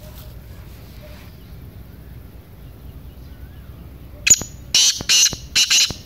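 Black francolin calling: one short sharp note, then three loud, harsh notes in quick succession near the end.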